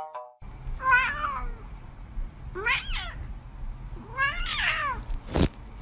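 A domestic cat meowing three times, each a short call that rises and falls in pitch, with a sharp knock near the end.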